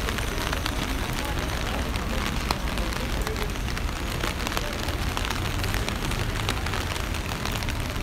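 Rain on a city street: a dense, irregular patter of drop ticks over a steady low street rumble.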